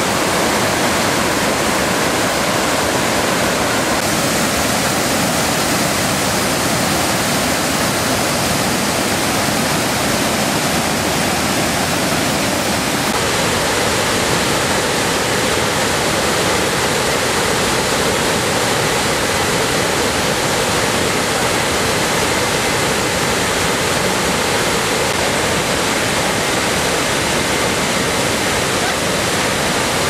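Steady, loud rush of a waterfall: river water cascading over stepped travertine ledges into pools. Its tone shifts slightly about 13 seconds in.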